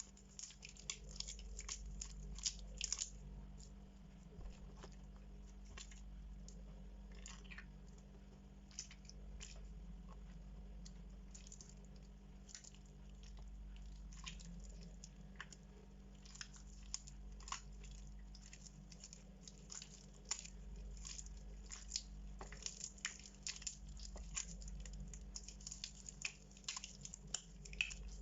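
Soaked bar soap being squeezed by hand, with soft wet squishing and many small crackles. The crackles come thickest at the start and again in the last several seconds.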